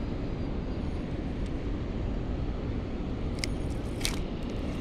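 Steady low outdoor rumble, with two short sharp clicks near the end.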